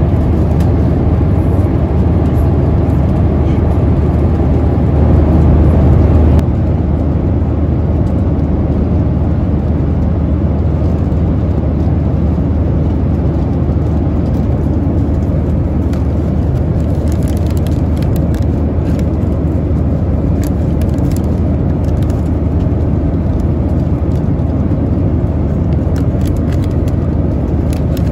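Steady cabin noise of a Boeing 737-900ER at cruise, the even rush of airflow and its CFM56 engines heard inside the cabin. It drops slightly in level about six seconds in, and light crinkles of snack packaging being handled come through in the second half.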